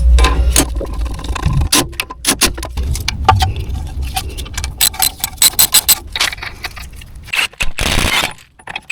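Metal hand tools and car parts clinking and knocking during the axle repair work, with a quick run of clicks about five seconds in.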